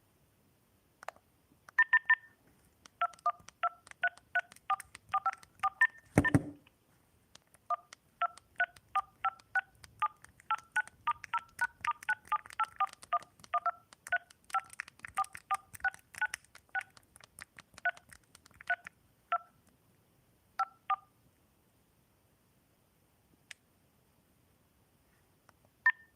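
Huawei smartphone dial-pad key tones: dozens of short DTMF touch-tone beeps as digits are tapped in, in quick irregular runs with brief pauses. A single low thump sounds about six seconds in.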